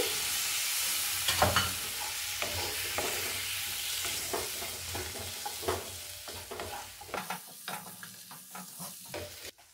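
Chopped tomatoes sizzling in hot oil and fried masala paste in a kadhai, with a wooden spatula scraping and knocking against the pan as they are stirred in. The sizzle is loudest at first and dies down as the cold tomatoes cool the pan.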